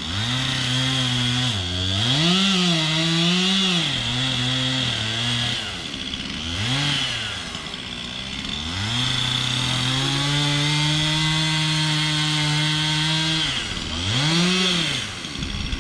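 Two-stroke chainsaw cutting a notch into a tree trunk. The engine revs up and falls back several times, then holds a steady speed for about four seconds under load in the second half, and revs up briefly once more near the end.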